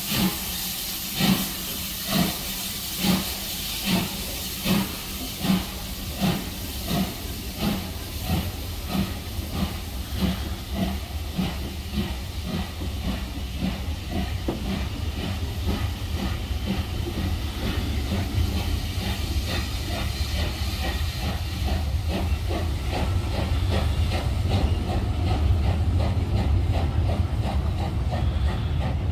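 Steam locomotive Bahamas, an LMS Jubilee class three-cylinder 4-6-0, pulling away with its exhaust chuffs quickening from about one a second to several a second, over a hiss of steam that fades. The coaches' wheels rumble louder on the rails as the train gathers speed.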